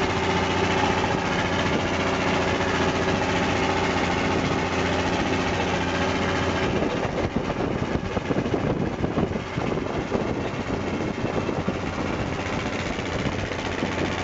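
Engine of a small wooden ferry boat running steadily under way, a low drone with an even pitch. About seven seconds in the drone drops back under a rougher, uneven noise for a few seconds before it comes through again.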